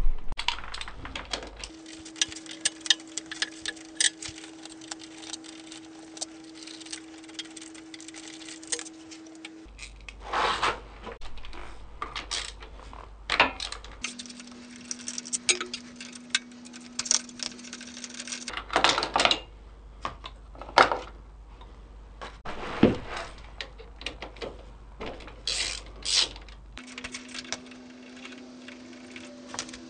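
Hand tools clicking and clinking on metal while bolts are undone on a quad's gearbox covers, with several louder metal clatters in between.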